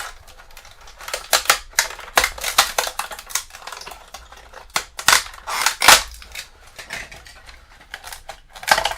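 Thin tree supports of a 3D print being snapped and broken off by hand: a run of irregular sharp clicks and cracks of breaking plastic, the loudest about five to six seconds in.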